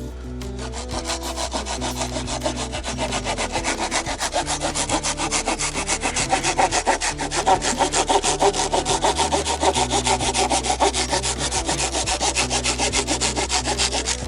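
A hand saw cutting through a wooden pallet board with quick, regular back-and-forth strokes, louder toward the middle, stopping suddenly at the end.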